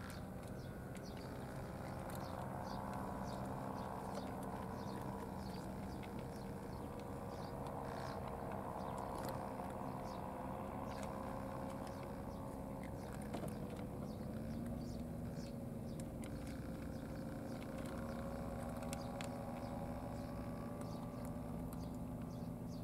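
Steady hum of a boat engine running, its pitch stepping up slightly about fourteen seconds in, with scattered small clicks of cats crunching dry food.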